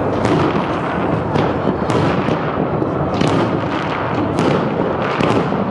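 Aerial fireworks shells bursting in a continuous barrage, a dense run of bangs and crackles coming several times a second.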